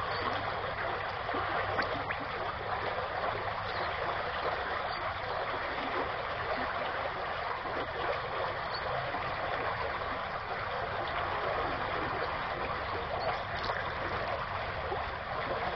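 Creek water running steadily, a constant trickling rush of flowing water.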